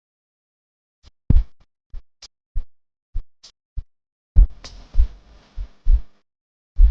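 Percussion-only drum beat without melody: deep kick hits and sharper snare or clap hits. It starts about a second in, and a noisy, cymbal-like wash rises just past the middle and lasts nearly two seconds.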